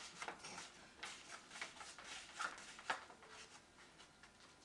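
Faint rustling and scattered light clicks from paper shadow puppets being handled.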